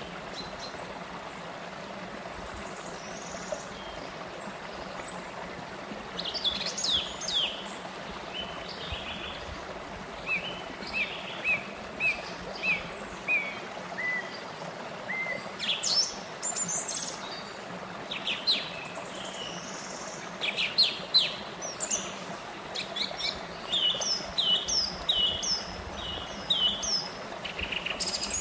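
Small rocky stream running steadily over low cascades, with songbirds singing from about six seconds in: short chirps and runs of quickly repeated notes, most busily near the end.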